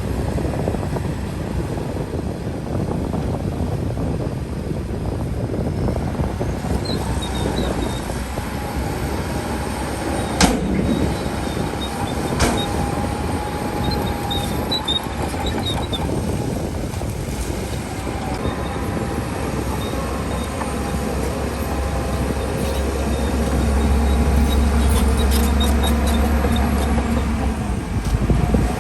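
Heavy diesel earthmoving machinery, a bulldozer and dump trucks, working with a steady low rumble. Two sharp metallic clanks come about ten and twelve seconds in, with short squeaks scattered through, and the engine rumble grows louder near the end.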